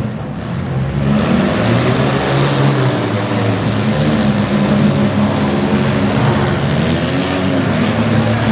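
Several demolition derby cars' engines running and revving together, their pitch rising and falling continuously.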